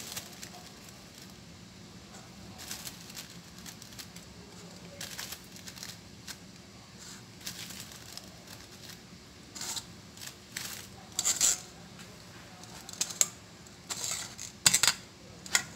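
Metal tablespoon scooping flour and tapping it into a stainless-steel mesh sieve over a steel bowl: scattered short scrapes and knocks of spoon on sieve and bowl rim, a few louder ones near the end.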